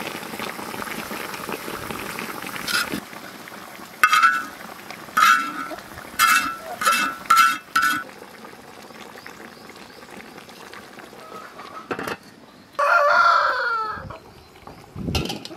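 Steady hiss of a pot steaming on the fire, then hens clucking in a string of six short calls, and a rooster crowing once near the end.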